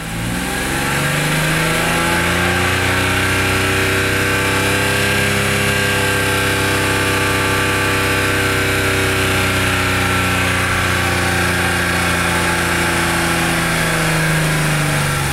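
BMW E46 M3's S54 straight-six engine revved up over the first couple of seconds, held steady at raised revs, then let back down toward idle near the end. This is a charging check on a newly fitted alternator, with the voltage holding at about 14.4 V.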